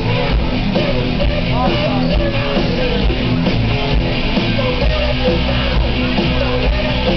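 Loud rock music, with a wavering melodic lead line over a steady low backing.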